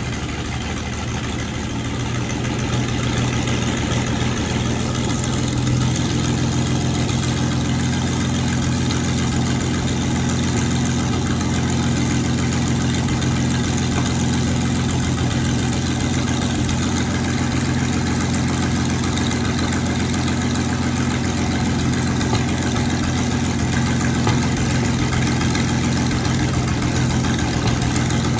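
Panther Ausf A tank's engine idling steadily with a low, even drone. It grows louder over the first few seconds and picks up a little about six seconds in.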